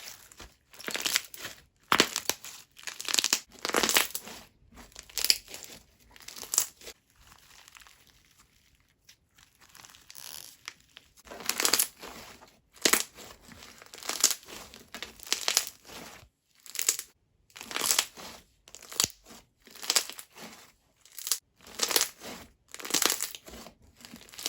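Crunchy foam-bead slime being squeezed and pressed by hand, crackling and popping in repeated bursts about once a second, with a quieter stretch about a third of the way in.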